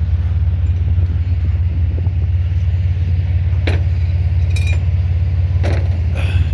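Pickup truck engine running steadily with a low, evenly pulsing drone, with a few light clicks over it in the second half.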